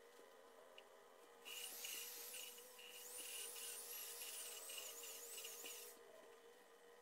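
Corded electric drill spinning a valve against its seat in a Yanmar YM240 cast-iron cylinder head with grinding compound, lapping away the pitting on the seat. It runs for about four and a half seconds, starting about a second and a half in, as a gritty rasp under a whine that wavers up and down in pitch.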